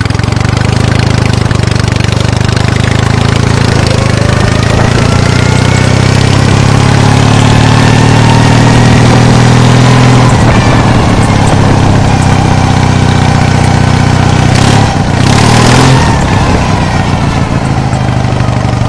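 Racing lawn mower's 16 hp Briggs & Stratton opposed-twin engine running under load as the mower is driven, on a freshly replaced ignition coil that cured its earlier popping and skipping. The pitch climbs over the first few seconds as it picks up speed and eases off about ten seconds in, with a brief rush of noise around fifteen seconds in.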